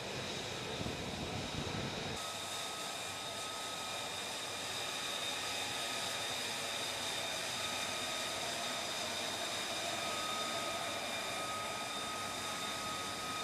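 F-35B's Pratt & Whitney F135 jet engine running on deck with a steady whine: several high tones held over a hiss. About two seconds in, a deeper rumble drops away and the thinner whine carries on.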